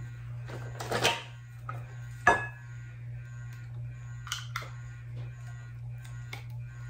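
A plastic spatula scraping and tapping a metal can as condensed cream of chicken soup is emptied into a glass mixing bowl of frozen vegetables, with a few sharp clicks, the loudest about a second in and just after two seconds, and lighter ticks later. A low steady hum runs underneath.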